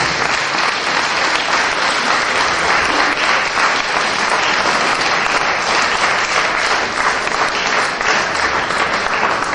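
Crowd applause from the audience and the dancers on stage: dense, steady clapping.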